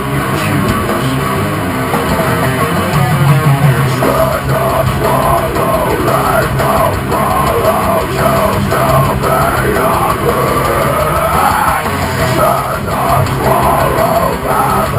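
Heavy rock band playing: distorted electric guitars over a drum kit, with a melody line bending up and down above them from about four seconds in.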